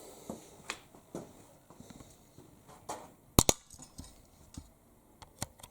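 Scattered light clicks and knocks of metal parts being handled, with a sharp double click about three and a half seconds in.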